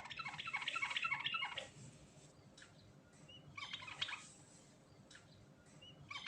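Yellow-vented bulbul (trucuk) singing: a bubbling, warbled phrase of about a second and a half, a couple of short single notes, then a shorter second phrase about three and a half seconds in, and another beginning at the end.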